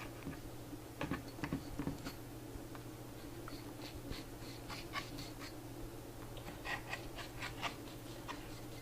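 Knife slicing through a freshly baked eggless sugar cookie in its pan: light scrapes and clicks in two scattered clusters, over a faint steady hum.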